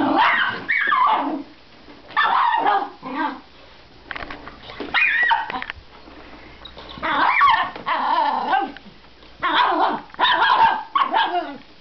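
Miniature schnauzer barking at a vacuum cleaner in five quick volleys of yapping barks, about two seconds apart.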